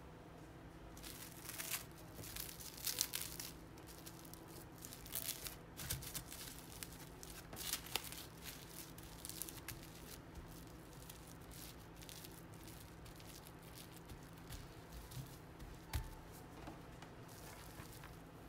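Plastic cling film crinkling as it is wrapped around pastry dough and the dough is pressed flat through it by hand. The crinkling comes in bursts, busiest in the first half, with one sharp tap near the end.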